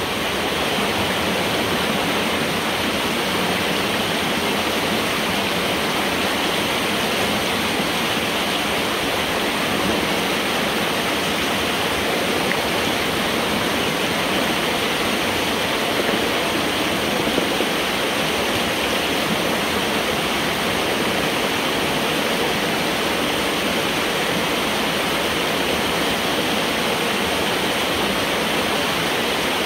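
Water rushing steadily through a metal road culvert pipe as the pond behind a partly removed beaver dam drains down.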